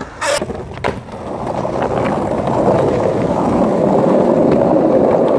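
Skateboard wheels rolling over rough concrete: a steady rumble that swells over the first couple of seconds and then holds loud, after a few sharp clicks in the first second.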